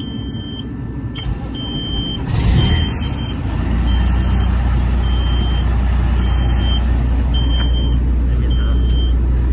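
Peterbilt 379 diesel truck engine starting about two and a half seconds in, then settling into a steady low idle. A dashboard warning buzzer sounds short high beeps about once a second throughout.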